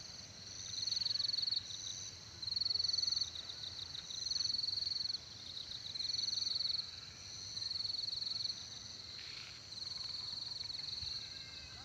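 Insects trilling: a steady high-pitched ringing with louder, rapidly pulsed trills of about a second each, repeating every one to two seconds.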